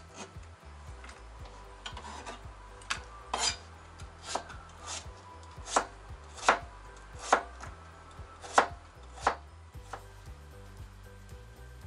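Kitchen knife cutting peeled winter melon into chunks on a cutting board: about a dozen sharp knocks of the blade striking the board, roughly one a second, stopping shortly before the end.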